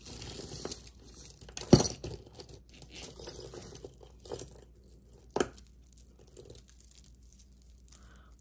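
Costume jewelry being handled and sorted: rustling with small metallic clinks, and a sharp clack about two seconds in and another about five and a half seconds in.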